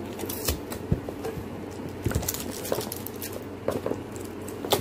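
Cardboard product packaging being opened by hand: the tape seal worked loose and a small inner box lifted out, with scattered short taps, clicks and rustles of cardboard.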